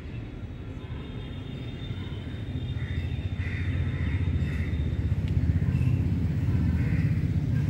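Low rumble of a passing motor vehicle, building over several seconds and loudest about two-thirds of the way in before easing off.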